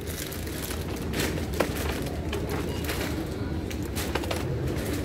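Supermarket aisle ambience: a steady low hum with scattered faint clicks and knocks.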